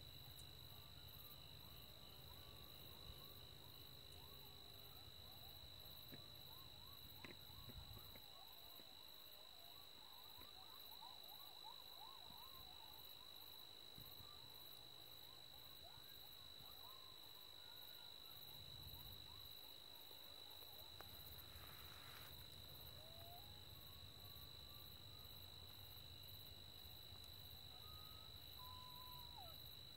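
Faint dusk insect chorus: a steady high trill with a fainter, evenly pulsing buzz above it, and a few scattered faint bird chirps.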